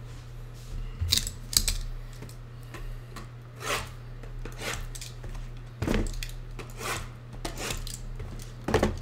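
Scattered light clicks, knocks and rustles of small objects being handled, irregular and a second or so apart, the sharpest about a second in, near six seconds and at the very end. A steady low electrical hum runs underneath.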